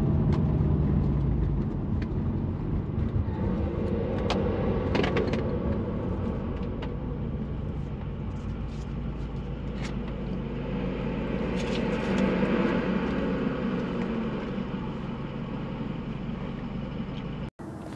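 Subaru WRX STI's turbocharged flat-four engine running through an AWE Touring exhaust while the car drives gently, with tyre and road noise. The engine note eases off after the start, then swells and glides in pitch about two-thirds of the way through as the throttle changes.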